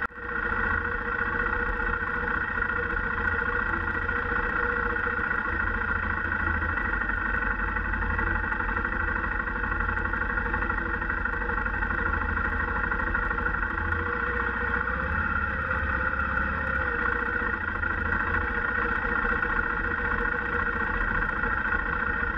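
Motorcycle engine running steadily while the bike rides along, heard from a camera mounted on the motorcycle.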